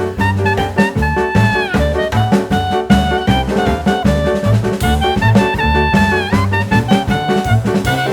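Background music: upbeat swing-style jazz with a horn-like lead melody over bass and drums.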